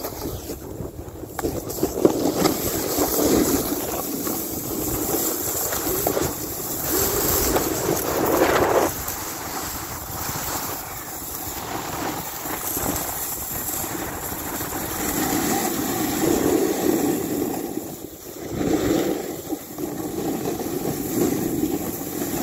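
Skis running over snow with wind rushing across the microphone: a dense, steady hiss that swells and eases, dipping briefly near the end.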